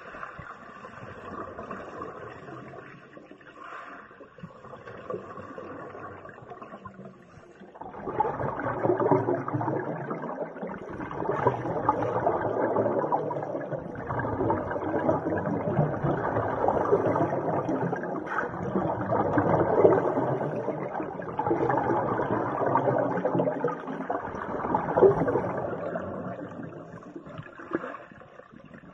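Muffled underwater noise heard through a submerged camera in a pool: the rushing and gurgling of scuba divers' exhaled bubbles and water movement. It is quieter at first, grows louder about eight seconds in, and then rises and falls every few seconds.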